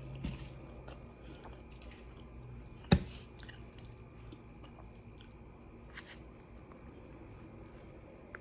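Close-up chewing and mouth sounds of a person eating, with soft scattered clicks. A single sharp click about three seconds in is the loudest sound.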